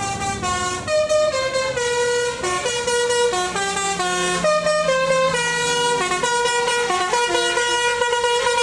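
Bus 'telolet basuri' musical air horn playing a melody: a quick run of sustained horn notes stepping up and down in pitch, one after another.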